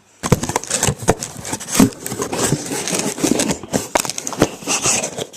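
Cardboard box rustling with irregular knocks and clicks as the old boiler burner is packed back into it.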